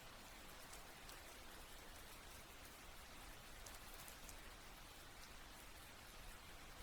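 Faint, steady rainfall, with scattered individual drops ticking.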